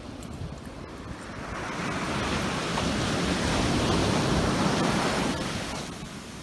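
Ocean surf on a sandy beach: a wave breaks and washes up, the rush of water swelling about two seconds in and dying down near the end, over a low rumble of wind on the microphone.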